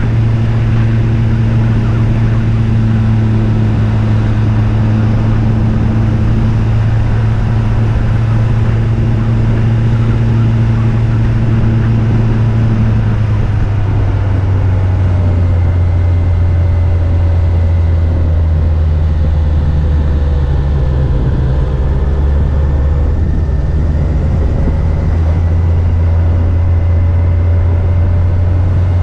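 Yamaha FJR1300's inline-four engine running under way over a steady rush of wind noise. Its note drops to a lower pitch about halfway through and holds there.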